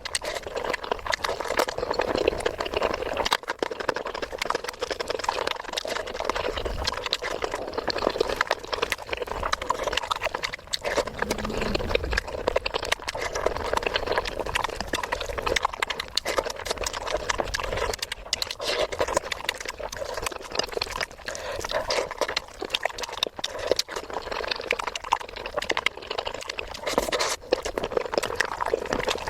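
Close-miked chewing and mouth sounds of a person eating: a continuous stream of wet smacks and crunchy clicks.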